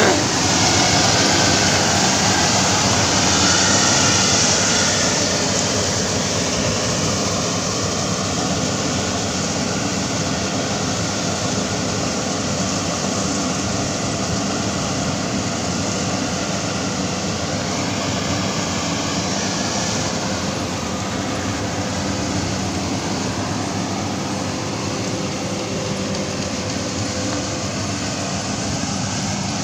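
FMWorld Ruilong Plus tracked rice combine harvester running steadily while harvesting rice: a dense, continuous mechanical din of engine and threshing machinery. It grows a little quieter over the first several seconds as the machine moves off, then holds steady.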